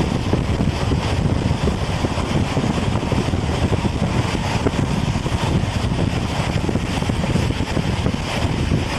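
Moving passenger train heard from an open carriage window: a steady rumble of wheels on the track mixed with wind rushing past the microphone.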